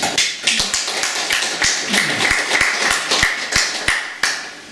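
A small audience clapping, individual claps standing out in an uneven patter, dying away near the end.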